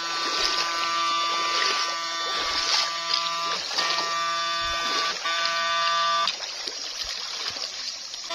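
Backpack electrofishing shocker buzzing steadily as its current is keyed into the stream, cutting out and coming back in bursts: one long burst for the first three and a half seconds, then two shorter ones, stopping about six seconds in. Stream water rushes and splashes underneath.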